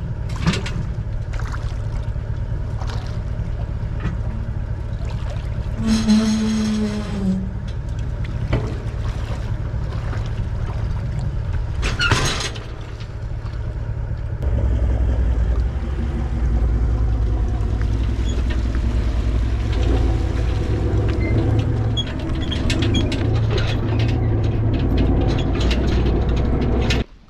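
Toyota LandCruiser Troop Carrier's engine running while the boat is pushed off its trailer, with a few knocks from boat and trailer. About halfway through the engine gets louder as it pulls the empty trailer up out of the water.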